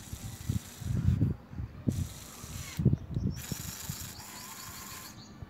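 Small electric gear motors of a VEX robotic arm whirring in several spurts as the arm turns and the claw moves, stopping shortly before the end. Irregular low thumps sound underneath.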